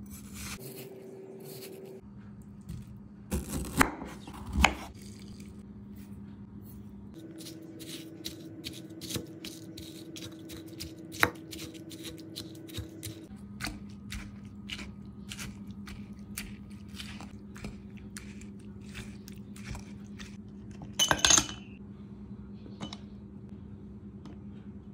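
Kitchen food-prep sounds over a steady low hum: a cleaver cutting through watermelon on a wooden cutting board, a wooden muddler knocking and crushing watermelon in a glass bowl, and lime and ice going into a drinking glass. The loudest are a few sharp knocks about four seconds in and a brief clattering burst about 21 seconds in.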